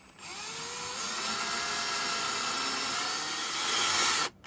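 Electric drill with a 4 mm bit spinning up with a rising whine, then running steadily as it bores a hole through the handle of a battery-charger clamp. It stops briefly near the end and starts again.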